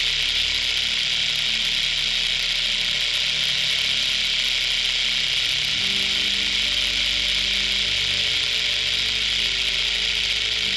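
Rattlesnake shaking its tail rattle: a continuous, dry, high buzz held steady throughout, the snake's defensive warning signal.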